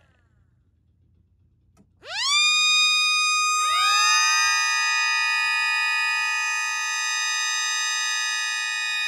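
Several Connor Cruz mini sirens wind up together after a short silence and a click. Some reach pitch a little later than others, then all hold a steady, high multi-tone wail: the on-part of an attack signal cycled by a siren timer.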